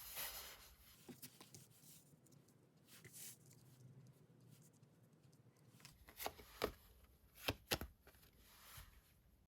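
Tarot cards being handled: a soft swish at the start, scattered light rustles and clicks, then a few sharp card snaps or taps about six to eight seconds in.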